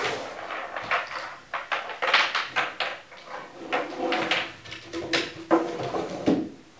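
Wooden chess set handled on a tabletop: the folding board or box is opened and set down, with repeated knocks and clatters of wood and rattling pieces.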